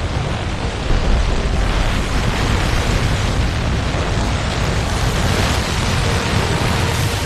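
Rushing floodwater: a loud, steady roar with a heavy low rumble underneath.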